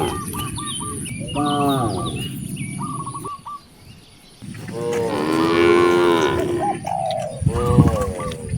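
Cows mooing several times, with one long moo in the middle. Short repeated chirps of a bird come between the moos.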